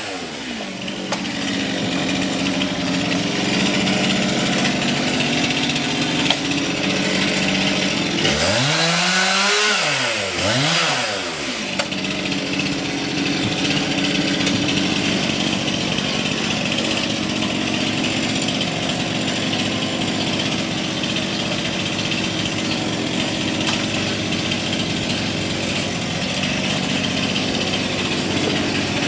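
Two-stroke chainsaw running steadily. Its engine speed drops right at the start, then revs up and falls back twice about 8 to 11 seconds in.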